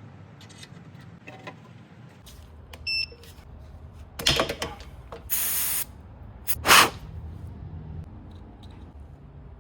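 A short electronic beep, then three short bursts of hissing, one lasting about half a second; the last burst is the loudest.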